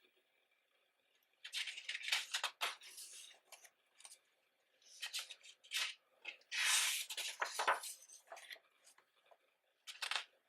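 Pages of a ring-bound photobook being turned by hand: paper rustling and flapping in short bursts, with one longer swish about seven seconds in.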